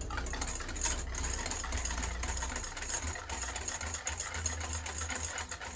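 Wire whisk beating yogurt and powdered sugar in a stainless steel bowl: a fast, even run of ticks as the tines strike the bowl and slap through the thick batter, over a low steady hum.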